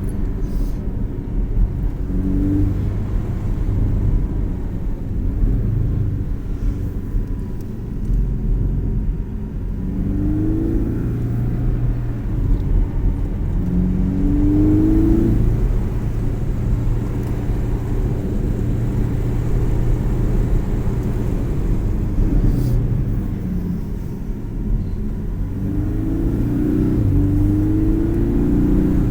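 Porsche 718's engine running under way on a winding road, revving up in several short rising pulls between stretches of steady running, over a constant low road rumble.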